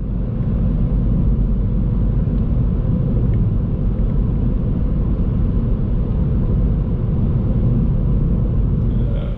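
A car engine running steadily, a low, even sound that does not rise or fall.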